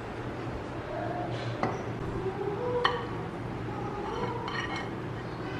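Ceramic dishes being handled: a glazed ceramic butter crock and a ceramic plate clink, with sharp knocks about a second and a half and three seconds in, the second ringing briefly, and more light clinks near the end. A steady low hum sits underneath.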